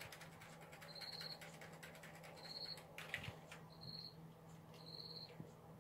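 A cricket chirping: short, even, high-pitched chirps, about one every second and a quarter, faint over a low steady hum, with a few faint clicks near the middle.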